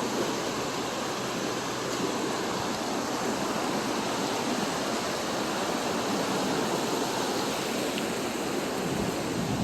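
A swollen, flooded creek rushing steadily, its high current a constant even noise with no breaks.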